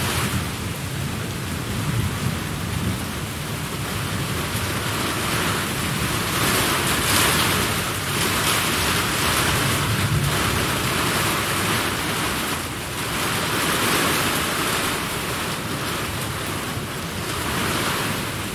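Steady rain with rolls of thunder, the storm noise swelling and easing every few seconds.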